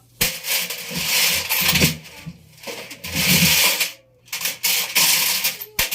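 Loose metal objects clattering and rattling inside a tumbling Electrolux washing machine drum, in three surges with a few dull thuds among them.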